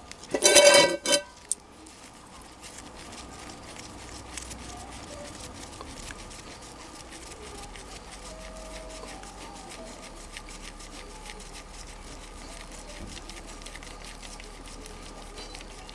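Gearbox oil running out of the drain hole of a 1988 Yamaha TDR 50 into a pan as the drain plug comes out: a steady faint trickle from about two seconds in. A brief loud burst of sound comes about half a second in.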